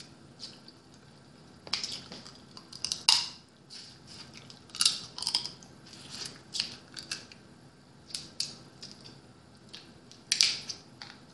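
Boiled blue crab shells cracking and crunching as they are broken apart by hand and the meat is eaten from them. The cracks are sharp and irregular, with the loudest about three seconds in, about five seconds in, and near the end.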